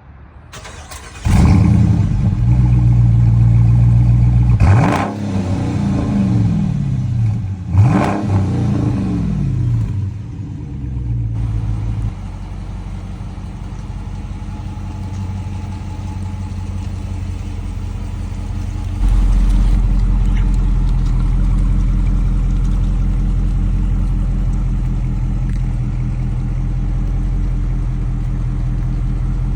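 Dodge Challenger R/T 345's 5.7-litre HEMI V8 starting up about a second in and running at a fast idle, blipped twice by the throttle, then settling to a steady idle.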